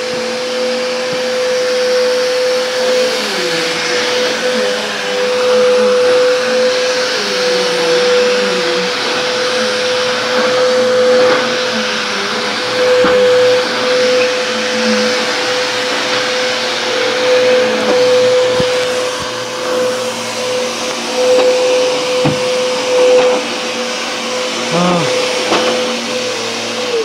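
Vacuum cleaner running with a steady motor whine over a rushing hiss, switched off at the very end, its pitch falling as the motor winds down.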